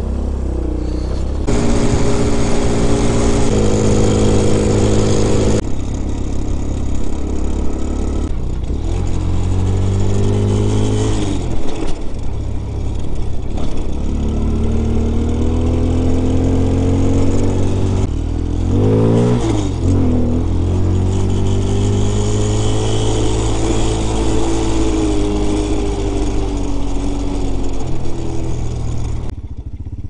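A 125cc Hellcat Raptor (Grom-clone) pit bike engine being ridden, pulling up through the gears. The pitch climbs and drops sharply at each shift several times, then holds fairly steady before easing off near the end. The bike has a bad engine vibration when revving, which the rider puts down to something loose, like a bolt.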